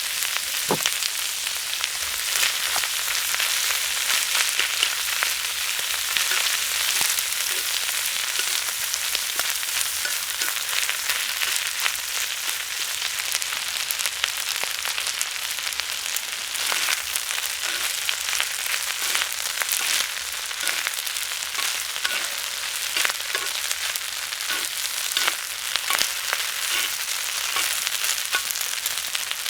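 Food sizzling steadily on a hot iron griddle over a campfire, with many small sharp pops and crackles through it.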